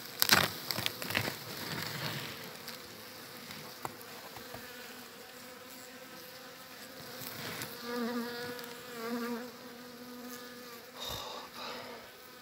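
Honeybee colony buzzing in an open wooden hive, a steady hum. A few knocks and rustles come in the first two seconds, and the buzz swells louder twice about eight to nine seconds in.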